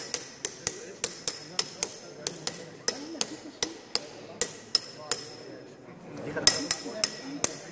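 Quick light metal taps, about three a second, each with a short high ring, struck on a rapping bar set in a wooden casting pattern in a sand mould. They rap the pattern loose from the sand so it can be drawn. The tapping pauses briefly about five seconds in, then resumes.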